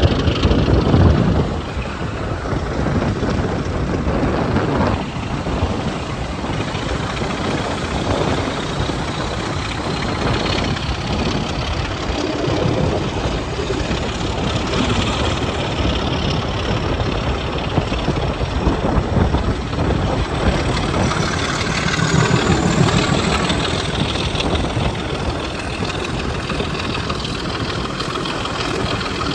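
Two double-headed BR Sulzer Type 2 'Rat' diesel locomotives working hard as they pull a train away. They are heard from an open carriage window, with wind and wheel noise. A whine rises steadily in pitch through the middle.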